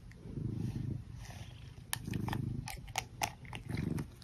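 Domestic cat purring at close range, the purr swelling and fading about three times, with a few short scratches of a pin brush raking through its fur.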